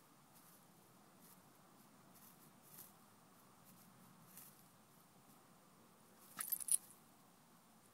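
A dog pawing and nosing in short grass: faint scuffs and rustles, with a short crackly burst of rustling about six and a half seconds in, over a quiet hiss.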